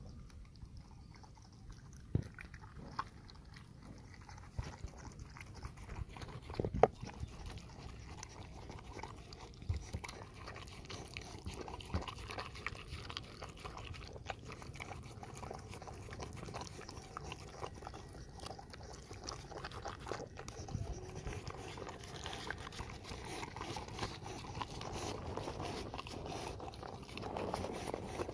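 A dog chewing and eating rice from a plastic basin, with irregular sharp clicks and knocks throughout, the loudest about seven seconds in.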